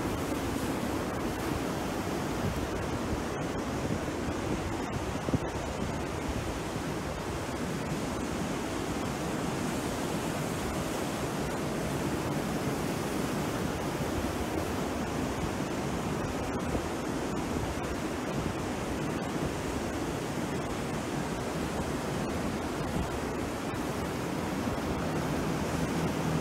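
Rough sea surf breaking and washing onto the shore, a steady rushing noise.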